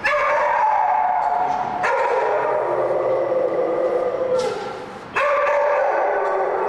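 Three long howling cries, each starting abruptly and sagging slightly in pitch, the second the longest.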